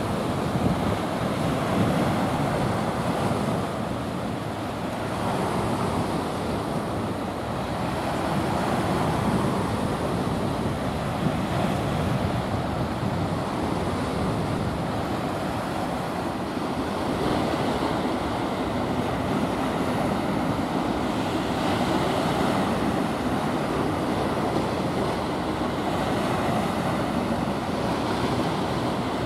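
Steady rush of choppy sea water and wind, with wind buffeting the microphone.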